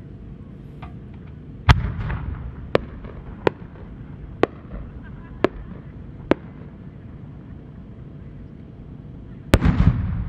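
Aerial fireworks: a loud bang about two seconds in with a rumbling tail, then five or six sharp cracks about a second apart, and near the end a large chrysanthemum shell bursting with the loudest boom, which rolls on in a long echo.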